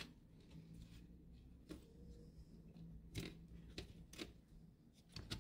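Faint plastic clicks and light knocks, a handful scattered through, from a replacement graphics-card cooling fan being handled and pressed into its plastic fan shroud, over a low steady hum.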